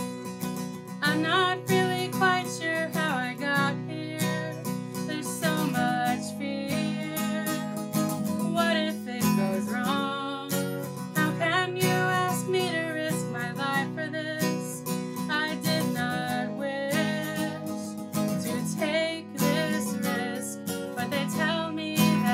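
Acoustic guitar strummed and picked, an instrumental passage of a slow song.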